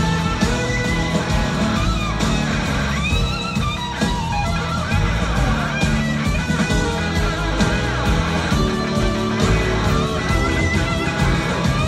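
Live rock band: a slide electric guitar lead with gliding, bending notes over a second electric guitar, bass and drums.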